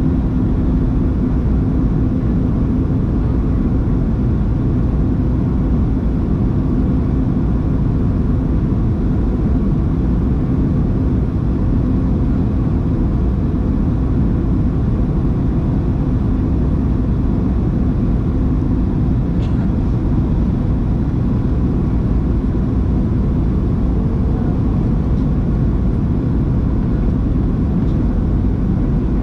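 Steady in-flight cabin noise inside a Boeing 737-700: the even roar of its engines and the airflow over the fuselage, with a steady low hum running through it.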